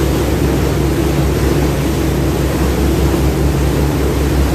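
A passenger ferry's engine runs steadily with a very noisy low drone, over the rush of the churning wake water behind the boat.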